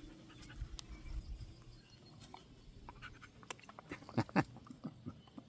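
Faint small sounds from a dog: light clicks and rustles, with a couple of short whines falling in pitch a little after four seconds in.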